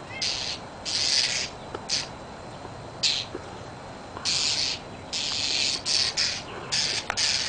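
An animal hissing in a dozen or so short, harsh bursts at uneven intervals.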